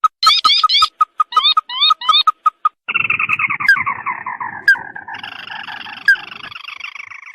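Crake lure-call recording: a fast series of short piping notes mixed with upward-sliding calls, then from about three seconds in a long rattling trill that falls in pitch.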